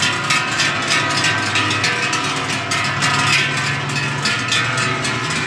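Large cowbells on walking cows clanging irregularly, several strikes a second, their ringing tones overlapping, over a low steady hum.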